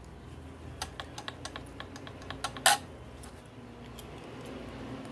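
Plastic pistol-grip RC transmitter being handled: a scatter of small clicks and taps, with one sharper click a little before the middle.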